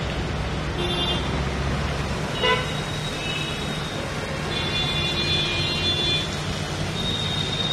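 Vehicle horns honking several times in street traffic, a longer honk about five seconds in, over a steady wash of traffic noise.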